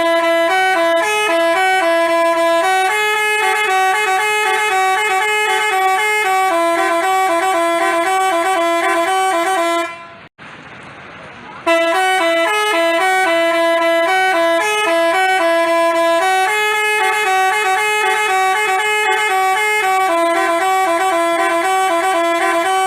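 Telolet basuri musical horn playing a multi-note tune in two long phrases, with a short break a little before halfway.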